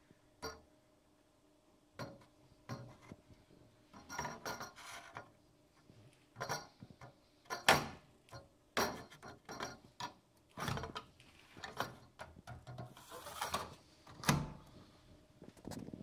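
Irregular clicks, knocks and scraping of hard plastic and metal as a circuit board and plug-in cards in an electronics equipment rack are handled. The loudest knock comes about halfway through, and a short scrape follows a few seconds later.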